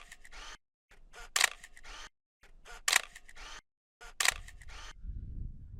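Camera shutter clicks, four of them about a second and a half apart, each followed by a moment of faint outdoor hiss and then a sudden drop to silence.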